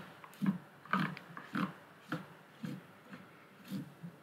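Cotton bud rubbing over a plastic bezel overlay on a calculator keypad to press it down: a series of short scrubbing strokes, about two a second.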